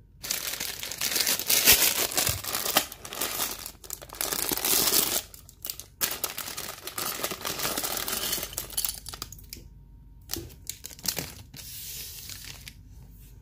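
Clear plastic polybag crinkling and tearing as it is handled and opened, in dense rustling bursts. Near the end it goes quieter, with a few small clicks of plastic toy pieces.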